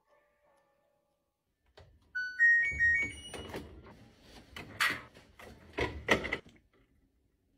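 Washing machine being loaded: a short run of electronic beeps stepping up in pitch, then a string of clunks and thuds as the lid and laundry are handled.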